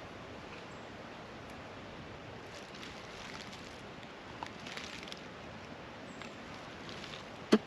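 Steady hiss of a creek running, with faint rustles of handling and one sharp knock near the end.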